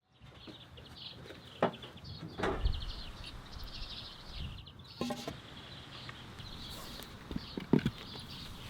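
Small garden birds chirping in quick, high repeated trills, with a few sharp knocks and taps from birds landing and pecking at the feeder.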